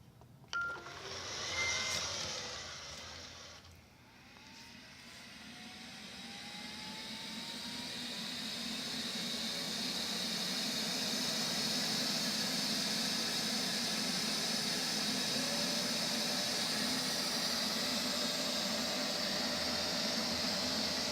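Neato XV-21 robot vacuum starting up: a short beep and about three seconds of noise, then its vacuum motor and brush spinning up with a rising whine over several seconds into a steady whir.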